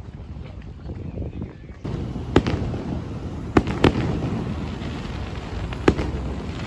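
A handful of sharp bangs at irregular intervals over a steady low rumble.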